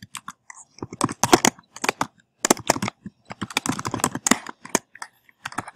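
Typing on a computer keyboard: quick runs of keystroke clicks in irregular bursts, with short pauses between them.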